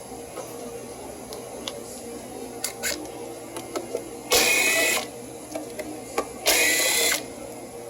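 A small cordless power tool, such as an electric ratchet or drill, runs twice in short bursts of under a second each, spinning out the 10 mm bolts that hold the ignition coil. Light clicks of the socket and tool come before the runs.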